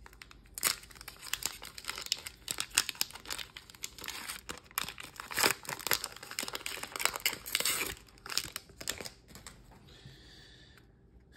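Foil wrapper of a Pokémon card booster pack being torn open and crinkled by hand: a dense run of irregular crackles and rips that dies down near the end.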